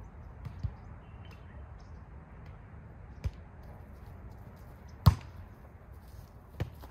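A volleyball being hit back and forth in a rally: several sharp smacks of players' hits on the ball, spaced a second or more apart, the loudest about five seconds in.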